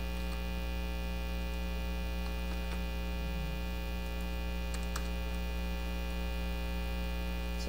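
Steady electrical mains hum with many evenly spaced overtones, unchanging throughout. A few faint computer keyboard key clicks sound over it.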